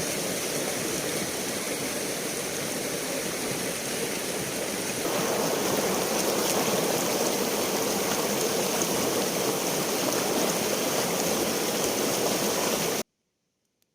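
River water rushing steadily, growing louder and fuller about five seconds in, then cutting off suddenly near the end.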